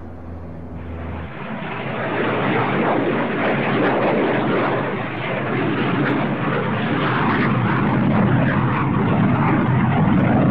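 Antonov An-22 turboprop transport's engines running, a steady rush of engine and propeller noise that swells over the first two seconds and then holds.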